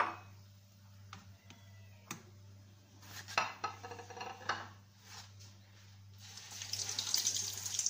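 A few clinks and knocks of utensils against the pan and dishes, then from about six seconds in a loud, steady sizzle as a breaded chicken bread patty is lowered into the hot frying oil.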